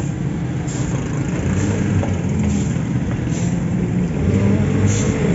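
Steady low rumble of vehicle engines and road traffic, with a few brief soft hisses over it.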